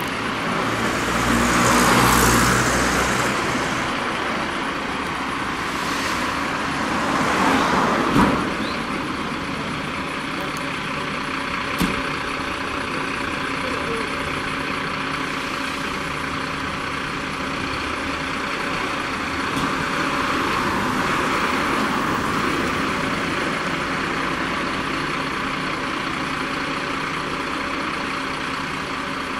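Engines of a Mercedes-Benz Sprinter emergency doctor's car and a fire department rescue truck idling steadily, swelling louder a few times. Two sharp knocks come about eight and twelve seconds in.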